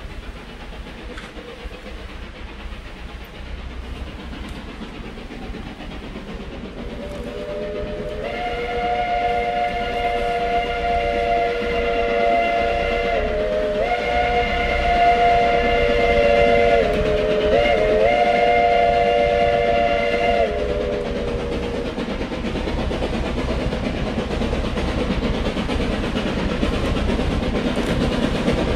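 Narrow-gauge steam locomotive approaching and blowing its whistle, several notes at once like a chord. The whistle starts about a quarter of the way in and sounds for some twelve seconds, sagging in pitch and breaking twice into three blasts. Its running noise grows louder as it nears.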